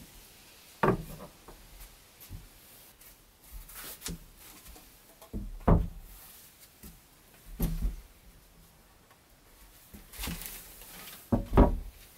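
Wooden boards being handled and set down on a wooden plank floor: a few separate wooden knocks and thuds, about four of them louder, with rubbing and shuffling in between.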